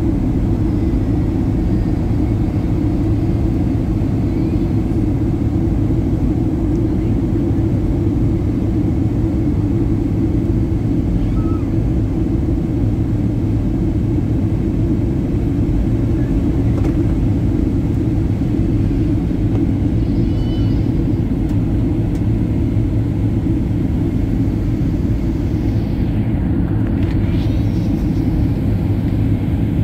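Steady low rumble of a jet airliner's cabin noise, engines and airflow, heard from a window seat on descent.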